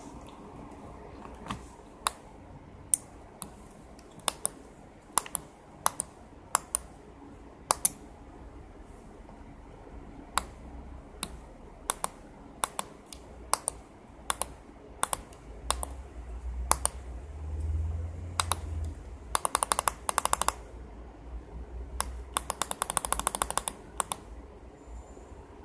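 Sharp single clicks every second or so from the switcher's tactile push buttons and its 8-channel relay module switching the effect loops, with two quick rattling runs of clicks about three-quarters of the way through.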